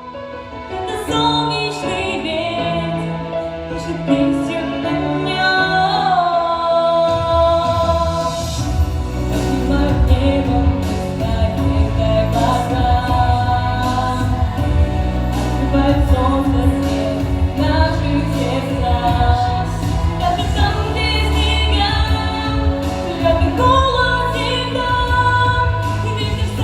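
A song with a woman singing a melody over accompaniment; a heavier bass and beat come in about eight seconds in.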